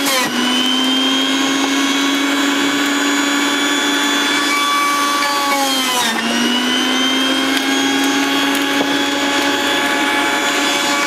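Sujata electric juicer's motor running with a steady whine while vegetables are pushed down its feed chute. Its pitch dips and recovers just after the start, and more deeply about six seconds in, as the motor slows under the load of the pressed vegetables.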